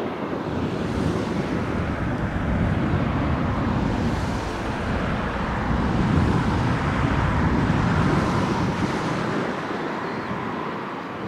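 Airbus A320 jet engines running at taxi power as the airliner turns toward the listener: a steady rumbling jet noise that swells a little midway and eases off near the end.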